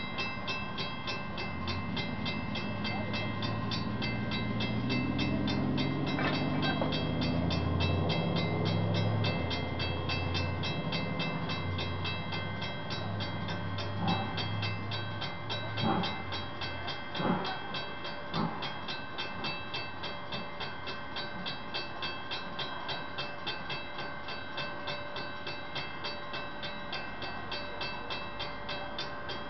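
Five coupled steam locomotives working slowly at low speed. A deep rumble swells and fades over the first third, a few sharp bangs come around the middle, and a regular rhythmic pulsing runs underneath throughout.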